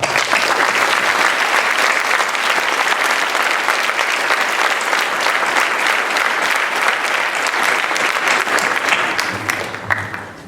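Audience clapping for a veteran who has just been introduced, a dense steady applause that dies away near the end.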